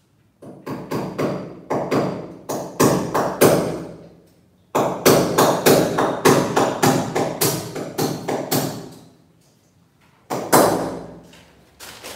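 A claw hammer driving a fastener through a metal curtain bracket into the wall: two runs of quick blows, about three or four a second with a short pause between, then a couple of single blows near the end.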